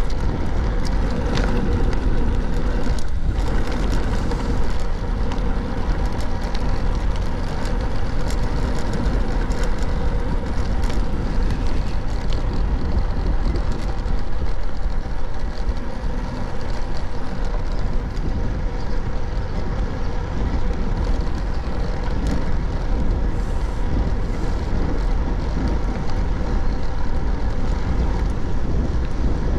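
Steady wind rush on a foam-covered GoPro microphone, mixed with the tyre and road noise of a 1999 Felt 50 bicycle riding along a road.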